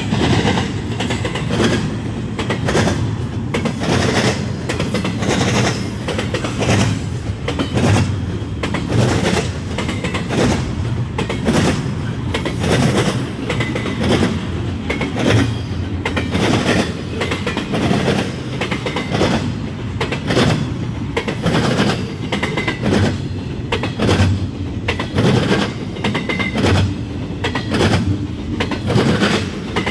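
Double-stack intermodal freight train rolling past at trackside: a steady, loud rumble of steel wheels on rail, broken by repeated clacks as the well cars' wheelsets cross rail joints.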